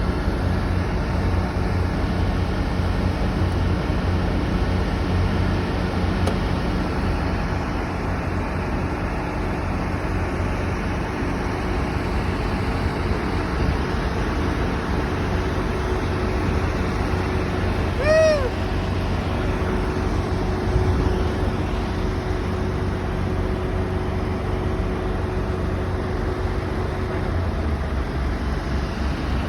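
Steady low engine rumble, with a faint steady hum through the middle and a single short high chirp about 18 seconds in.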